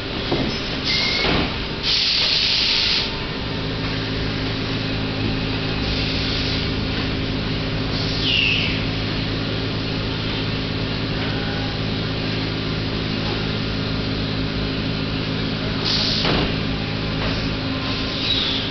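Steady machine hum that sets in a few seconds in, under scraping and rustling of large cardboard sheets and boxes being slid and set down, with a short squeak and a knock.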